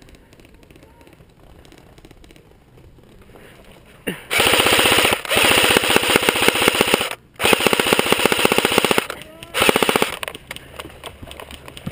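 Airsoft rifle firing on full auto in rapid bursts: a long burst starting about four seconds in, a brief stop, a second burst of about a second and a half, then a short burst near the end.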